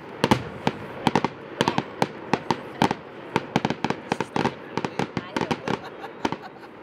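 Fireworks going off: a rapid, irregular string of sharp cracks and bangs, several a second.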